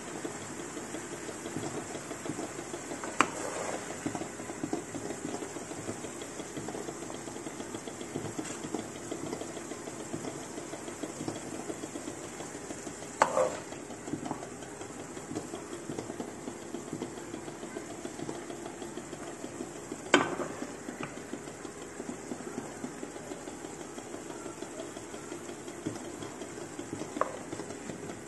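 A wooden spoon scraping and scooping a sucuk, pepper and tomato filling in a metal pan over a steady light sizzle and crackle. Every several seconds the spoon gives a sharp knock, four in all.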